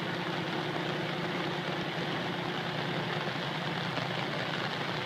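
Fire engine running steadily at the fire, with a steady hum over a constant wash of noise; the higher part of the hum fades out about four seconds in.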